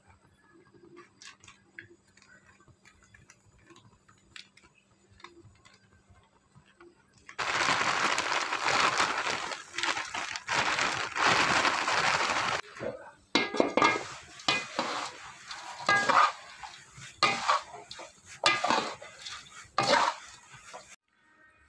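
Faint ticking, then a loud rushing rattle of dry poha (flattened rice) flakes going into an aluminium kadai. This is followed by a metal spatula stirring and scraping the flakes against the pan in uneven strokes, with some clanks ringing off the metal.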